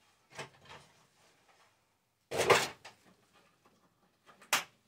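Kitchen handling noises: a few faint shuffles, then a loud short clatter about halfway through and a sharp knock near the end.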